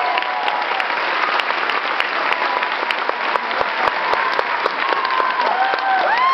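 Audience applauding, a dense, steady patter of clapping, with voices calling out near the end.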